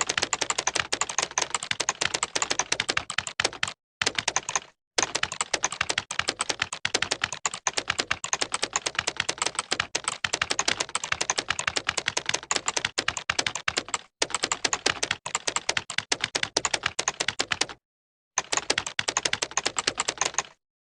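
Computer keyboard typed on fast: a dense, continuous patter of key clicks with a few brief pauses, stopping shortly before the end.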